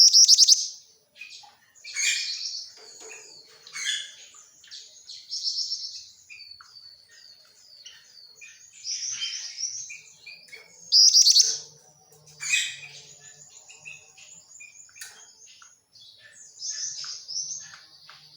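Female jingjing batu (black-winged flycatcher-shrike) chirping in short bursts of high, rapid notes and trills, loudest at the start and again about eleven seconds in.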